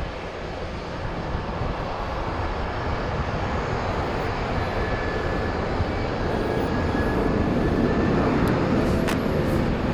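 Jet airliner engines at takeoff thrust, a Lufthansa Cargo MD-11 on its takeoff roll: a deep, steady rumble that grows louder throughout.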